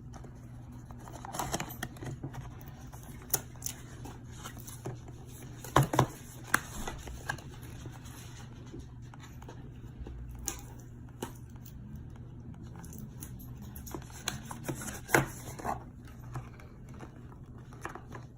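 Hands handling and opening product packaging: scattered clicks, scrapes and rustles, with a few sharper knocks about six seconds in and again near fifteen seconds, over a low steady hum.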